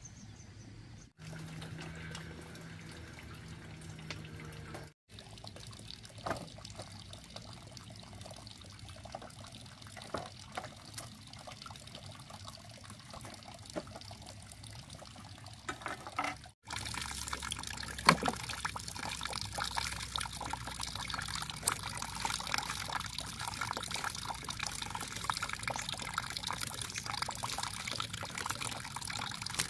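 Water trickling and splashing as small fish are cleaned and rinsed by hand in a woven bamboo basket, with many small scraping clicks. It gets louder about halfway through.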